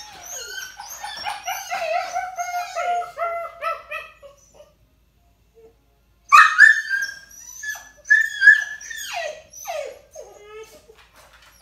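Young puppy whining and crying in his crate: a run of high, falling whimpers for about four seconds, a short pause, then louder high-pitched cries from about six seconds in. It is crate-anxiety whining, a bid for attention.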